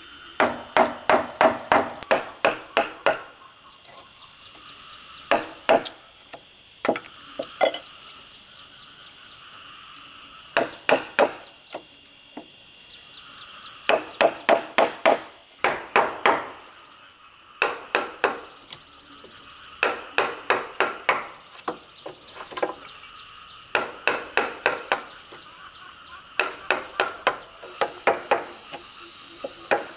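Wooden mallet striking a wood chisel to cut a mortise in a timber board: sharp wooden knocks about four or five a second, in runs of a few seconds broken by short pauses.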